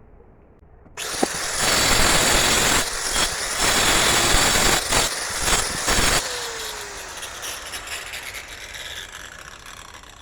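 Angle grinder cutting a brick: it starts abruptly about a second in, grinds loudly through the brick for about five seconds, then is released and winds down with a falling whine.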